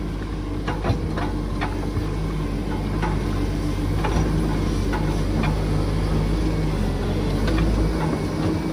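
Volvo wheeled excavator's diesel engine running steadily while the hydraulic arm and tiltrotator bucket tip out and spread soil, with scattered light ticks and knocks. The deepest part of the engine hum drops away shortly before the end.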